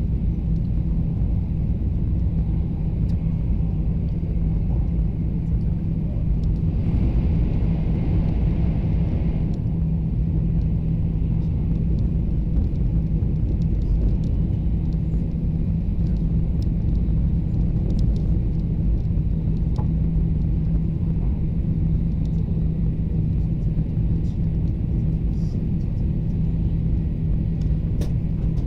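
Cabin noise of a Taiwan High Speed Rail train running steadily: a constant low rumble with a steady hum. About seven seconds in, a higher hiss joins for two or three seconds.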